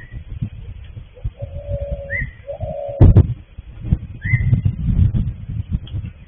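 Birds calling: a short rising chirp repeated three times about two seconds apart, and two held mid-pitched notes a little over a second in. A single loud thump comes about three seconds in, over a fluctuating low rumble.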